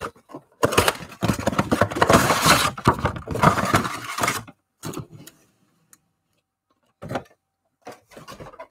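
A cardboard Panini Prizm mega box being torn open and its foil card packs handled: a dense crinkling rustle for about four seconds, then a few short taps.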